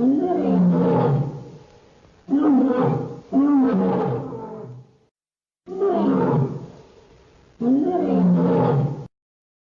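A big cat roaring five times. Each roar lasts a second or two and starts suddenly, with abrupt cuts and silent gaps between them, like separate recordings joined together.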